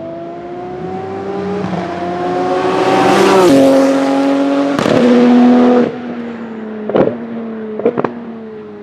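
Porsche 997 GT2 RSR's twin-turbo 3.9-litre flat-six accelerating hard, its pitch climbing, then dropping suddenly about three and a half seconds in at an upshift. About six seconds in the throttle closes and the sound falls off, the engine slowing on the overrun with a few sharp pops.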